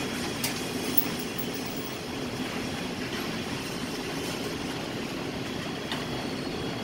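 Electric target carrier running along its overhead track, bringing a paper target back up the shooting lane: a steady mechanical running noise with a few faint clicks.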